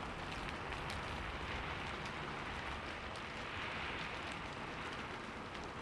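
Wood fire crackling: a steady hiss with scattered small pops, over a low cat purr.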